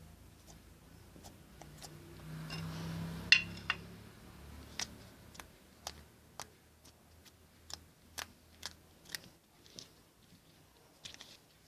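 Homemade slime being pressed and squeezed right at the microphone, making a series of sharp, irregular clicks and pops, with a softer squishing sound a couple of seconds in before the clicks.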